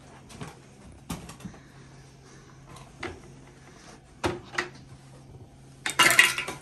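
Handling noises at a kitchen counter: a few light knocks and clicks, then a louder, noisier burst of handling near the end as a box of brownie mix is worked open.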